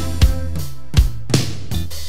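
Instrumental music with a drum kit beat: a few bass drum and snare hits over sustained pitched chords, no singing.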